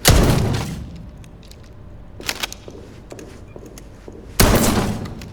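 Two shotgun blasts about four and a half seconds apart, each with a long echoing tail, and a couple of small sharp clicks between them.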